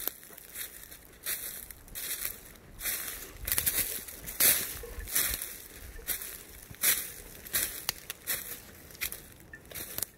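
Footsteps crunching through thick dry fallen leaves at a steady walking pace, a little more than one step a second.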